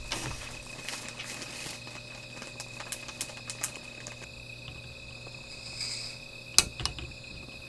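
Small fire crackling with scattered pops and a sharp snap near the end, over the steady high trill of crickets.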